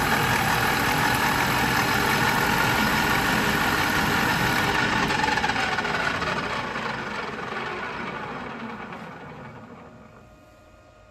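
Colchester Student metal lathe running, then switched off about five seconds in. Its whine falls in pitch as the faceplate and headstock spin down, nearly stopped near the end.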